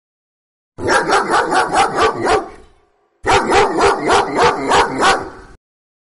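A dog barking rapidly in two runs of about five barks a second, each run a couple of seconds long with a short gap between, the second cutting off abruptly.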